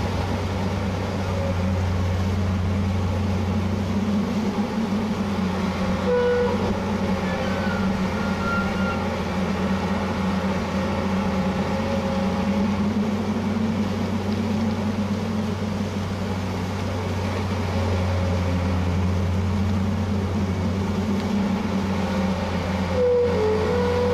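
Diesel engine of an amphibious pontoon excavator running steadily under load while it digs, a constant low drone. A few short squeaks come through, about six seconds in and again near the end.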